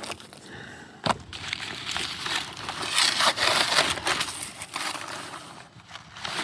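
Peel ply being ripped off cured epoxy and fiberglass laminate: an uneven crackling tear, loudest about three to four seconds in, with a sharp snap about a second in.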